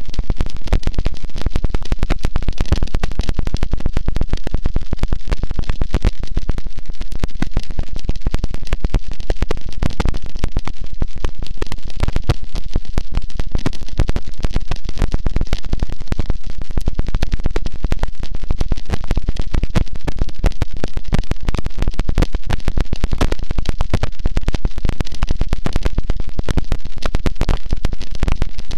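Harsh noise wall: a loud, unchanging wall of distorted crackling static, heaviest in the low end, with no pitch, rhythm or change.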